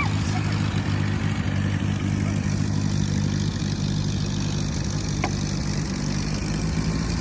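Vehicle engine idling steadily with an even low hum.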